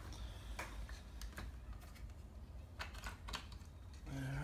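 A few light, scattered clicks of plastic Lego pieces and minifigures being handled and set down.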